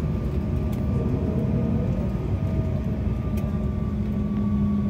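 Steady drone and rumble inside an airliner cabin, with a constant low hum and a couple of faint clicks.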